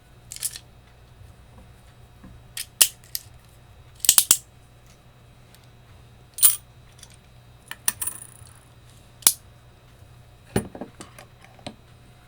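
Sharp metallic clicks and clinks at irregular intervals, about a dozen, from a Northwestern gumball machine's vending mechanism being worked by hand with a metal punch as its parts are turned around.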